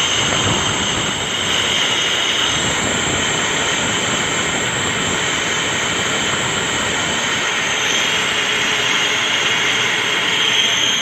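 Metal lathe cutting stainless steel: a steady machining noise with a high-pitched whine from the cut that eases a few seconds in and strengthens again near the end.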